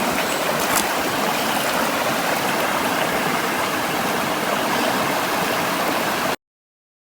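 River water flowing over rocks, a steady rushing stream that cuts off suddenly near the end.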